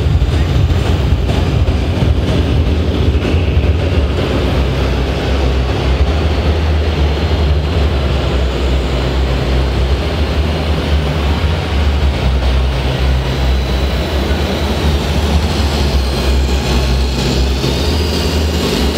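Steady low diesel-engine rumble from a scale RC truck's engine sound module, over the hall's background din.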